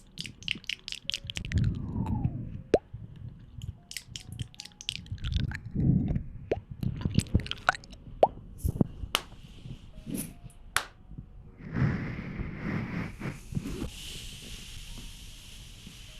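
Close-miked ASMR trigger sounds: a run of sharp wet clicks and plops, then a steady hiss starting about twelve seconds in.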